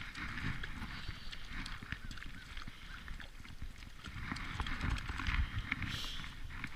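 A hooked spotted seatrout thrashing and splashing at the water's surface, with a brighter splash about six seconds in, over low rumbling and bumps from handling the rod on the kayak.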